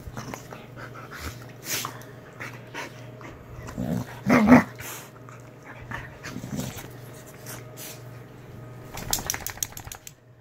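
Two dogs, an English bulldog and a white fluffy dog, play-fighting on a bed. There are play growls, loudest about four seconds in, with scuffling and rustling of the bedding and a patter of sharp ticks near the end.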